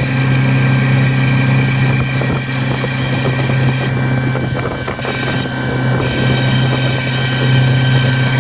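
2020 Mercury 50 hp four-stroke outboard running steadily at about 4,000 RPM, with a thin, steady high-pitched squeal over the engine note. The owner suspects a bearing; the motor is in its third hour of break-in.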